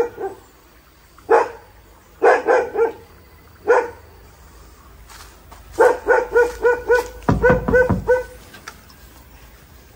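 A dog barking in bouts: a single bark, a quick run of three, another single, then a run of about eight barks in quick succession.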